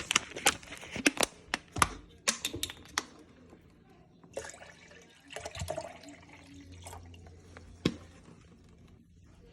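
Water poured from a plastic bottle into a coffee maker's water reservoir, with sharp clicks and knocks of the bottle and plastic parts being handled, most of them in the first few seconds.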